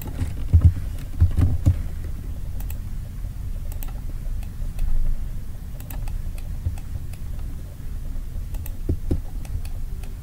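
Computer mouse and keyboard clicks, scattered and irregular, several close together near the start and more spaced out afterwards, over a steady low hum.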